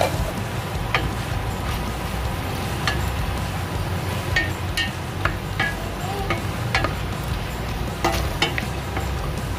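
Pork belly pieces frying with onion and garlic in a stainless steel pot, stirred with a wooden spoon that scrapes and knocks against the pot. Scattered clicks and pops sound over a steady low hum.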